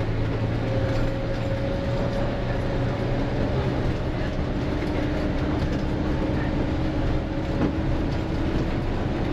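Engine drone and tyre rumble heard from inside a moving bus driving over stone-block paving, a steady low hum under an even rumble.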